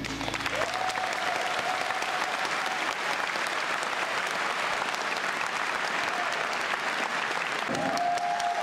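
Audience applauding after a choir song.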